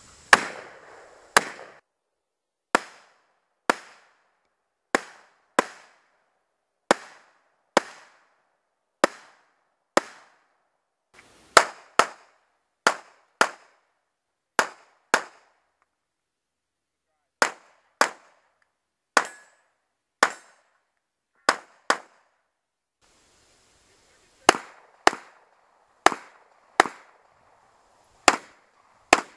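Gunfire from competitors shooting pistols and a long gun: a long series of single shots, roughly one or two a second, each with a short echo. There are two brief breaks between strings of shots.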